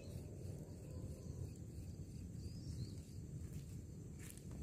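Quiet outdoor ambience: an uneven low rumble with a few faint, short bird chirps, and a couple of sharp clicks near the end.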